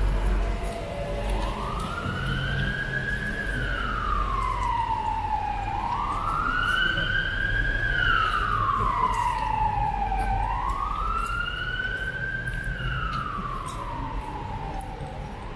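Emergency vehicle siren wailing, slowly rising and falling in pitch, about three full cycles, starting about a second in.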